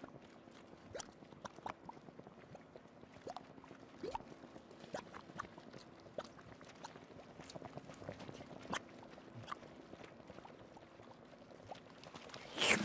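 Faint, scattered drips and small gloopy plops of spilled custard over a low steady hum. Music starts right at the end.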